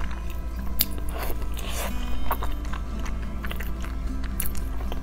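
Close-up biting and chewing of a chocolate-topped pastry, with scattered crisp crackles as it is bitten into.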